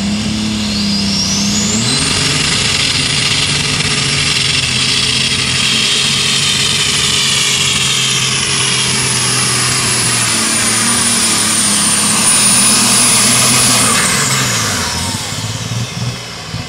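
John Deere light super stock pulling tractor at full throttle under load, pulling the sled. The engine revs up about two seconds in, and a very high turbocharger whine climbs and then holds steady through the run. Near the end the engine and whine fall away as the pull ends.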